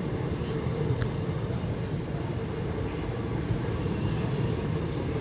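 Indian Railways passenger coaches rolling past, with a steady low rumble of wheels on the rails and a single sharp click about a second in.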